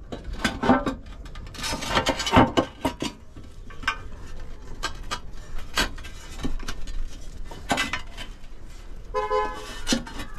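Glazed roof tiles clinking and knocking against each other as they are handled and fitted into place, a scattered series of sharp taps. A steady horn-like tone sounds for about a second near the end.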